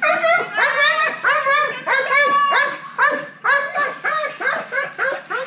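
A dog barking rapidly and continuously, about three sharp, high barks a second without a break. It is the excited barking of a bite-work dog going for a decoy in a bite suit.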